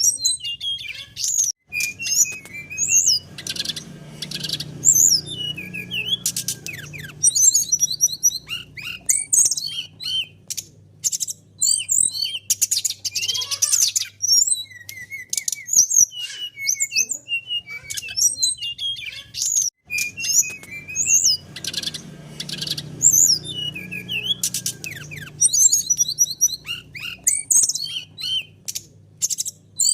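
Songbird singing a fast, varied run of high chirps and whistles, with a low background hum now and then; the same stretch of song repeats about every 18 seconds, as a looped lure recording does.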